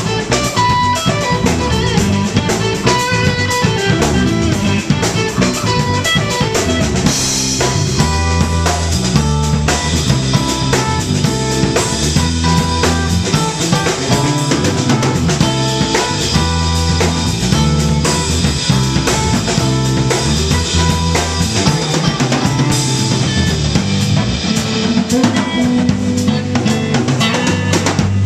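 Live instrumental rock played by a trio of electric guitar, electric bass and drum kit: busy drumming with cymbals over a moving bass line, the guitar playing lines on top.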